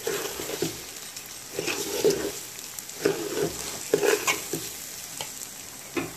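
A metal spoon stirs and scrapes raw polao rice through hot oil and fried onions in a cooking pot, with the rice frying underneath. The scraping strokes come irregularly, about once or twice a second.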